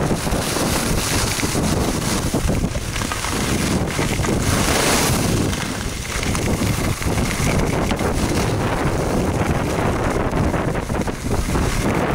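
Wind buffeting the action camera's microphone during a fast downhill ski run at about 50 km/h, with the rushing hiss and scrape of skis over groomed, chopped-up snow.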